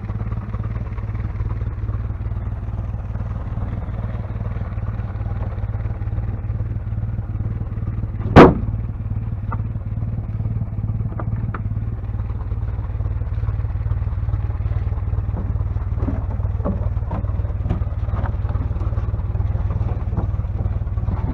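1956 Jeep CJ5's Willys Hurricane F-head four-cylinder engine idling steadily as it warms up after a cold start. A single sharp, loud knock about eight seconds in.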